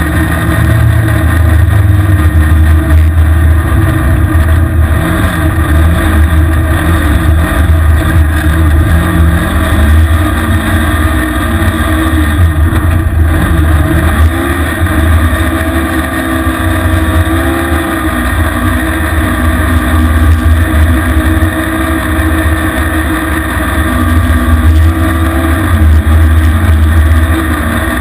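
Vehicle engine running as it drives through snow, its pitch rising and falling again and again with speed, under a loud steady low rumble of wind on the exposed microphone.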